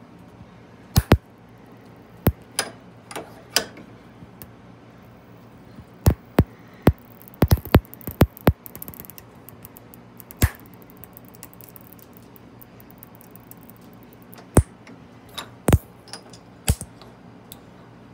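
Irregular sharp metallic clicks and knocks from a bench vise being worked with a watch clamped on the edge of its jaws, about twenty in scattered clusters with a run of fine rapid clicks about nine seconds in, over a steady low hum.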